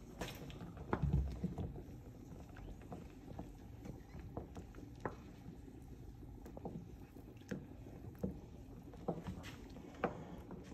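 A wooden spoon stirring rice in a saucepan of steaming water: the water swishes, with irregular light clicks and knocks of the spoon against the pan and a heavier thump about a second in.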